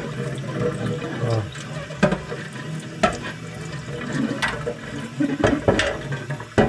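Kitchen tap water running and splashing into a stainless steel water-filter chamber being rinsed in a stainless sink, with several sharp metallic knocks as the steel container is handled.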